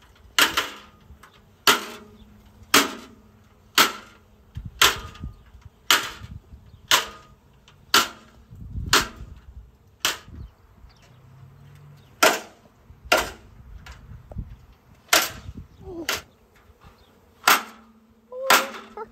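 A metal stepladder being banged open and shut over and over, giving a sharp clang about once a second, with a short pause a little past the middle. This is 'tanging': making noise to get a departing honeybee swarm to settle.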